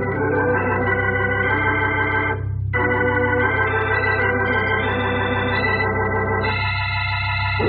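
Organ music bridge between scenes: a few held chords, with a short break about two and a half seconds in and a new chord near the end.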